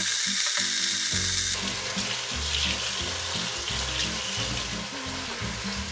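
Cow foot pieces sizzling as they brown in hot oil in a pressure cooker, a steady high hiss that softens about a second and a half in, under background music.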